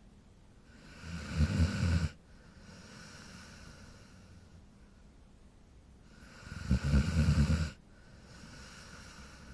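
Dog snoring: two loud rattling snores, one about a second in and another some five seconds later, each lasting about a second, with softer breathing between them.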